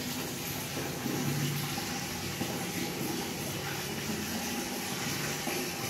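Water running steadily from a tap in a small tiled bathroom.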